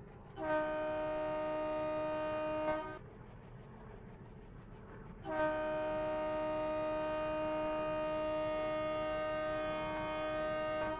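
Train horn sounding two long blasts, the first about two seconds long and the second about five and a half, each a steady chord of two close notes, over a steady low rumble.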